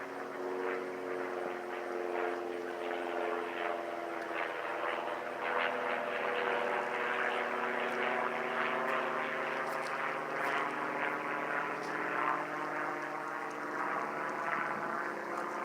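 A propeller airplane's engine droning steadily as it flies nearby.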